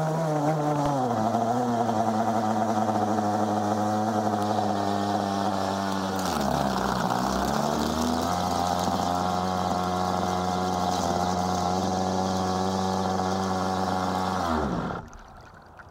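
Radio-controlled boat's O.S. 1.2 nitro glow engine throttling back, then idling steadily. Its revs sag and recover briefly about six to eight seconds in, and it cuts out with a falling pitch near the end.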